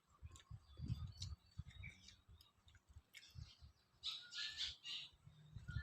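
Faint high chirps from small birds, a few short calls scattered through, over soft irregular low knocks and taps.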